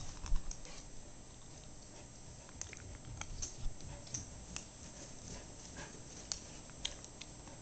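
A dog's paws pattering and scuffing on carpet as it runs in tight circles, with scattered light clicks and a thump right at the start.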